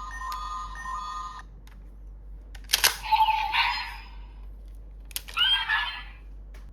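Electronic sound effect of a Bandai DX Ultraman Trigger Hyper Key toy ending, then two sharp plastic clicks of the toy being worked, about three seconds and five seconds in. Each click is followed by a short electronic sound effect from the toy's small speaker.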